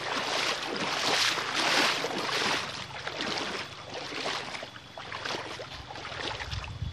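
River water splashing and sloshing in uneven surges, louder in the first half.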